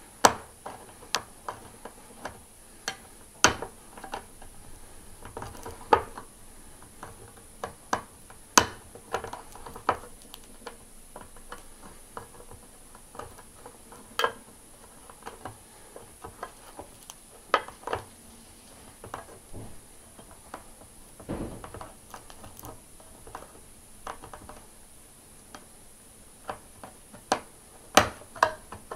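Victorinox pocket-knife can opener working its way around a tin can's lid, cutting the metal in irregular sharp clicks and crunches, a few much louder than the rest.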